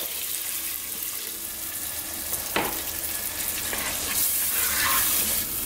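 Cold water poured into a pot of frying tomato masala, which keeps sizzling, then a spoon stirring through the sauce, with one sharp knock partway through.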